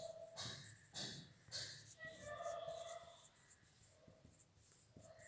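Felt-tip marker writing letters: faint scratchy strokes, a few in quick succession, with a light squeak now and then.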